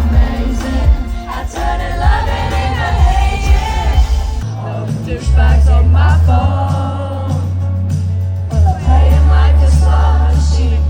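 Live pop music heard from the crowd at a concert: singing over loud music with a heavy bass, which changes to long held bass notes about halfway through.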